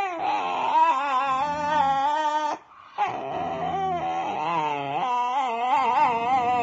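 A dog's long, wavering whining cries, in two drawn-out stretches broken by a short pause about two and a half seconds in.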